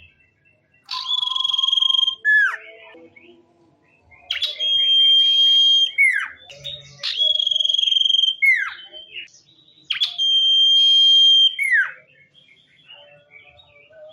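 A sirtu songbird singing four loud phrases, each a long steady high whistle that ends in a quick downward slur. Soft twittering comes between the phrases.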